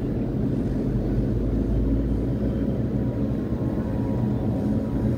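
Steady low mechanical drone of a crane's drive machinery heard inside the operator's cab as he works the joysticks, with a deeper rumble swelling briefly about a second or two in.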